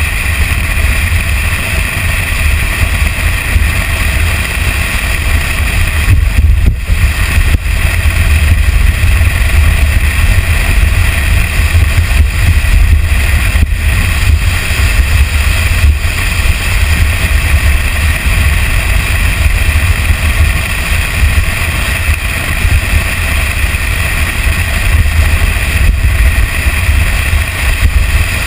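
Toyota Tacoma pickup driving fast down a dirt trail, heard from a camera mounted outside the truck: a steady, loud low rumble of wind and road noise with the engine running underneath.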